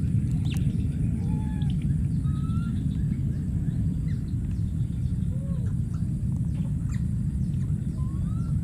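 Outdoor ambience: a steady low rumble throughout, with a few short, faint rising and arching calls scattered through it, about five in all, and a thin steady high hiss.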